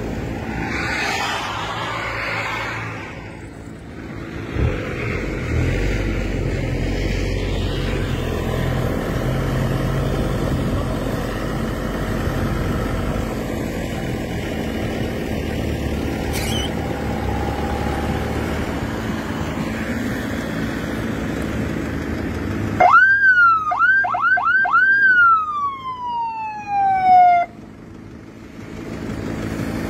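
4x4 engine running steadily as the vehicle drives through snow. About 23 seconds in, a loud electronic siren sounds for about four seconds: several quick rising whoops, then one long falling wail.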